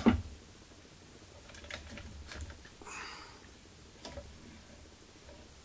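Light clicks and taps of hand work on the Z-axis lead screw and coupling of a DIY CNC router, with a sharp clack at the very start and a short scrape about three seconds in.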